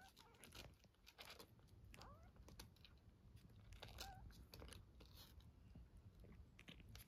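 Kitten suckling milk from a nursing bottle: faint, quick wet clicks of sucking, with a few tiny squeaks about every two seconds.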